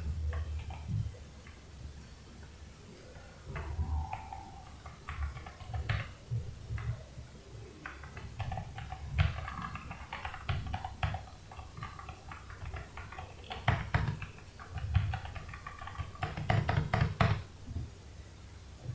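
Typing on a Havit KB890L mechanical keyboard: irregular runs of quick clacking keystrokes with short pauses between them.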